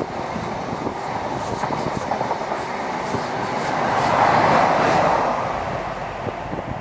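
A diesel High Speed Train's Mark 3 coaches rolling past with wheels clicking on the rails. The rear Class 43 power car then goes by, its diesel engine loudest about four seconds in, and the train fades away near the end.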